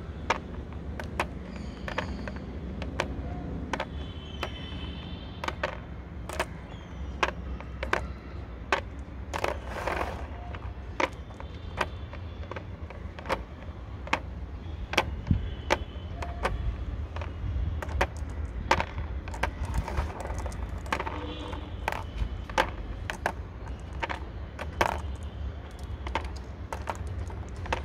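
Marbles clicking on a plastic marble solitaire board as they are jumped, dropped into holes and lifted out, a sharp click every half second to second, over a low, steady background rumble.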